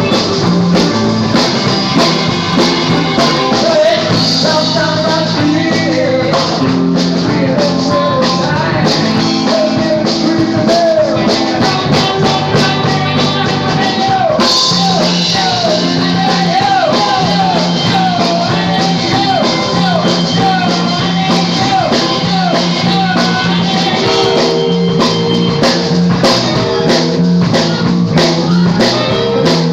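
Rock band playing live: drum kit and bass under an electric guitar lead line full of bent notes, peaking in the middle of the passage.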